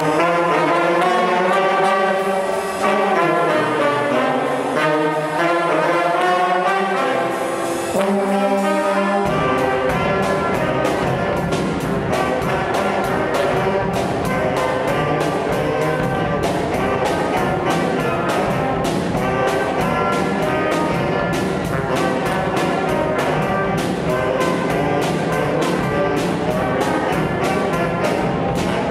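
School band of saxophones, trombone, trumpet and a low brass horn playing live. About nine seconds in, low bass notes fill in under the horns and a steady, fast beat joins.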